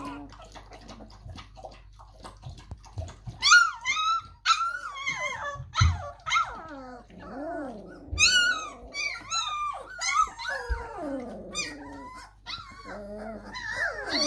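A litter of three-week-old German Shepherd–Labrador mix puppies crying: soft, low, wavering whimpers at first, then from about three and a half seconds in many loud, high-pitched squealing whines that overlap, sweeping and falling in pitch.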